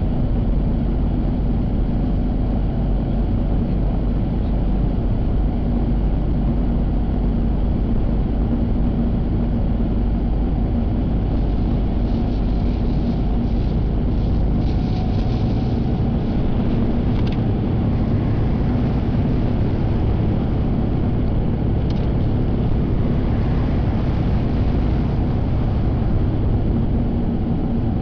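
Car engine and tyre noise heard from inside the cabin while driving: a steady low drone with a constant hum.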